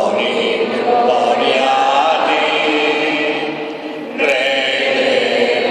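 Voices singing a slow liturgical hymn in chant style, holding long notes, with a short break for breath about four seconds in.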